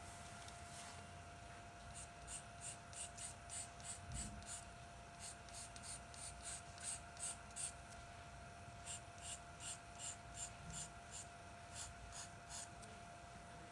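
Charcoal pencil scratching on drawing paper in quick, short flicking strokes, about three a second, as individual hairs are shaded. The strokes come in three runs with brief pauses between them, over a faint steady whine.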